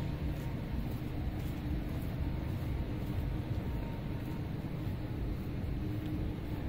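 Steady low outdoor city rumble, with a faint steady hum running through it.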